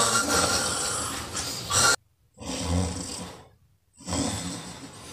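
Exaggerated, acted snoring: three long, rasping snores with short silences between them, the first the longest.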